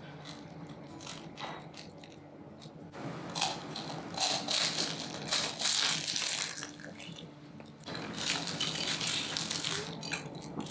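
Crisp deep-fried spring roll wrappers crunching and crackling in a dense run of crackles. The crackles are faint at first, grow loud about three seconds in, and come in two spells with a short break near eight seconds.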